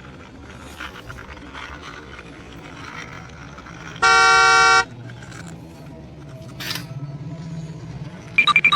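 A single loud horn toot, one steady tone lasting under a second, about four seconds in, over faint background noise. Near the end comes a quick run of short high beeps.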